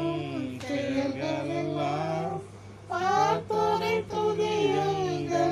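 A family singing a Tamil Christian praise hymn together, unaccompanied voices with a child's voice standing out, in sung phrases with a brief breath pause about two and a half seconds in.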